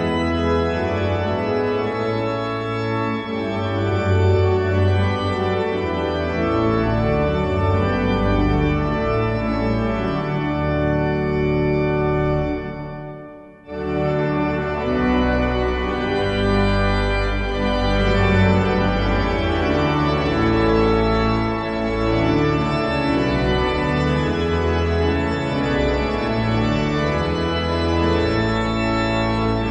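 Organ music in slow, held chords; about halfway through one piece fades out and another starts straight after.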